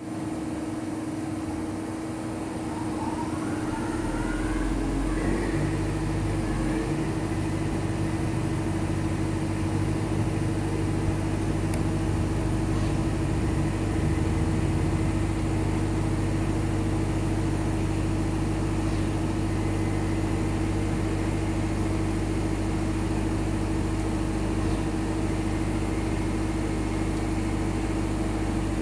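Machine tool dry-cutting free-cutting steel: a rising whine over the first few seconds, then steady running with a constant hum.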